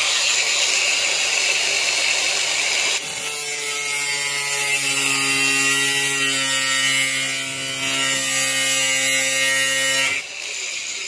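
Cordless Makita 18 V angle grinder with a thin metal-cutting disc, spinning with a high hiss. About three seconds in the disc bites into the edge of 2 mm mild sheet steel, adding a steady ringing hum of several pitches while it cuts the small starting nick on the pen line. Near the end the disc comes out of the cut and the sound drops sharply.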